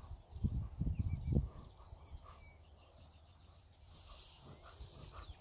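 Wild birds calling in the bush: many short, downward-sweeping chirps with a repeated lower note. In the first second and a half, a few loud low rumbling thuds come over them.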